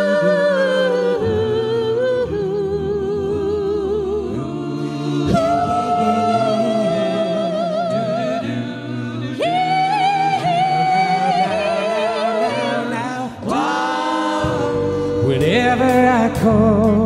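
A small group of voices singing in harmony, unaccompanied, holding long notes with vibrato.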